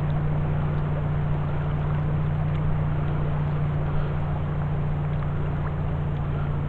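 Boat motor running steadily with a constant low hum.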